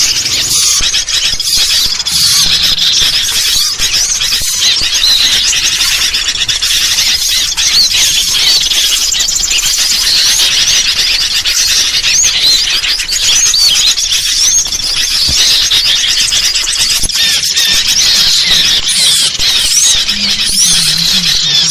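Bird-lure recording: a dense, unbroken chorus of high, squeaky chirps and short up-and-down whistled notes from many small birds, a noisy mix of sooty-headed bulbul calls and small-bird calls.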